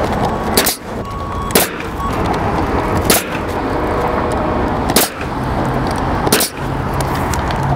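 Pneumatic coil roofing nailer firing nails through asphalt shingles: five sharp shots, one to two seconds apart. A low steady hum comes in about five seconds in.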